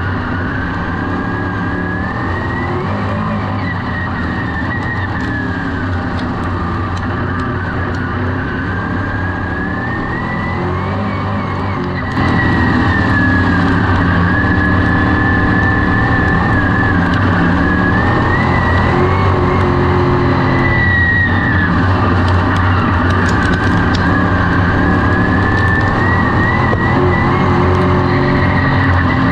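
Dirt-track race car engine running hard at racing speed, its pitch climbing and dropping back in long cycles roughly every eight seconds. The sound gets louder about twelve seconds in.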